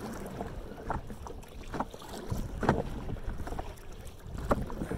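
Canoe paddle strokes in the water as the canoe is spun around with sweeping C strokes, a short stroke sound roughly once a second.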